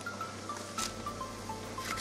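Background music, a light melody of short, quick notes, about four a second, with a few scraping rubs over it.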